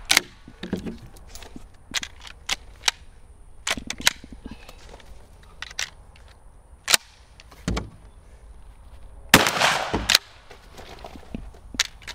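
Adler Arms HT108T 12-gauge pump shotgun firing a single loud shot about nine seconds in. Before and after it come many short metallic clicks and clacks as the pump action is worked.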